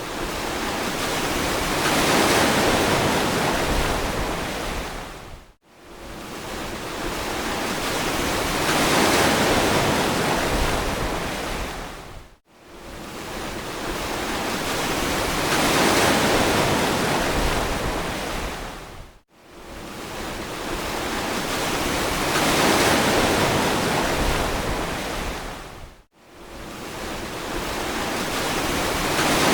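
Ocean surf: waves breaking and washing in one after another, each building up and fading away over about seven seconds, with a sudden brief dip almost to silence between them.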